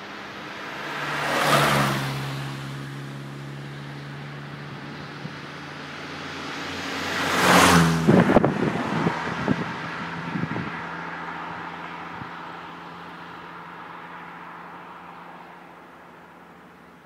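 Two classic Renault cars drive past one after the other, each engine rising to a peak as it comes by and dropping in pitch as it goes away. After the second car passes there are a couple of seconds of crackling on the microphone, then its engine fades into the distance.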